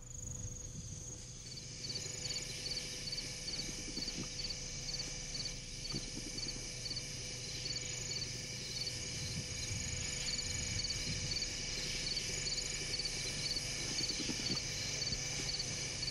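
A chorus of crickets and other insects: several steady high-pitched trills with a regularly repeating chirp on top, fading in over the first couple of seconds, over a faint low hum.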